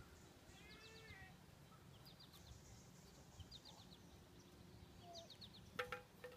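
Faint bird calls: short quick runs of high chirps, repeated every second or so, with a couple of sharp clicks near the end.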